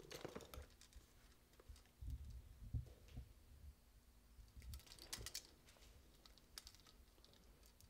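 Faint clicks and handling noise of a hand wire stripper working on electrical wires, with a few sharp clicks about five seconds in.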